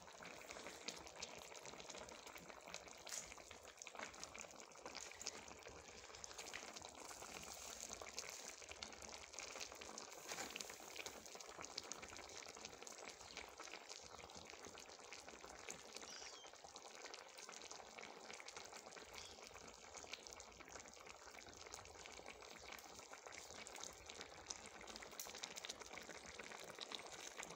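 Sardine tagine simmering in a metal tagine pot over a charcoal brazier: a faint, steady bubbling and sizzling of the sauce, with many fine crackles.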